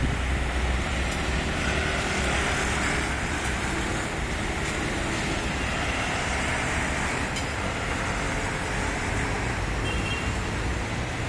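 Steady road traffic noise of a busy city street, with cars and other vehicles passing. A brief faint high squeal comes about ten seconds in.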